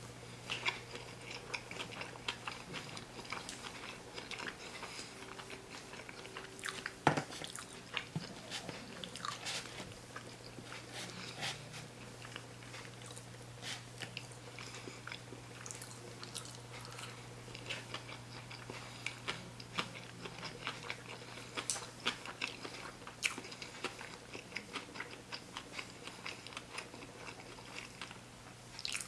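Close-miked chewing of a sushi roll: a samurai roll (unagi and avocado on a dynamite roll). There are soft crunches and many small wet mouth clicks, the sharpest about seven seconds in, over a steady low hum.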